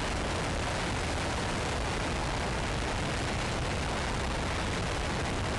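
Five-segment solid rocket motor firing on a horizontal static test stand, about a minute into its burn: a steady, even rushing noise that holds at one level with no change.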